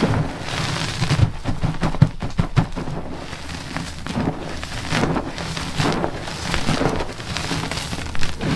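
Dyed gym chalk blocks crushed in both hands, crunching and crumbling as chunks and powder fall onto a pile of chalk. It comes in several quick bursts of crackling, one crush after another.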